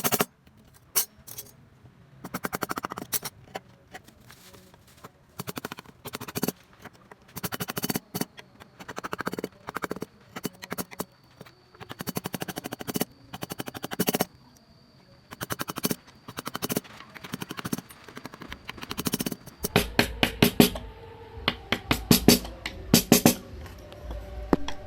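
Wood being carved by hand: bursts of rapid, sharp taps on a carving chisel, with short pauses between. A low rumble joins about twenty seconds in.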